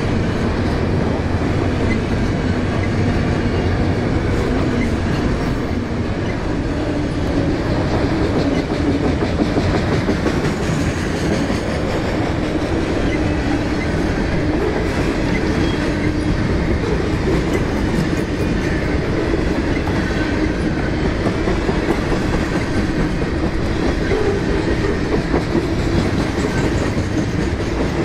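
Freight train of autorack cars and boxcars rolling steadily past close by: a continuous rumble of steel wheels on the rails.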